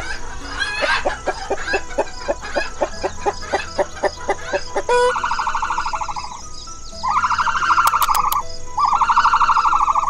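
Hens clucking in a quick run of short repeated notes, several a second, then, from about five seconds in, an ostrich giving three long buzzing calls, each over a second long.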